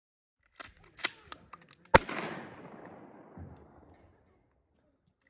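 A single handgun shot fired from horseback about two seconds in, a sharp crack that echoes away over about two seconds. A few light clicks come just before it.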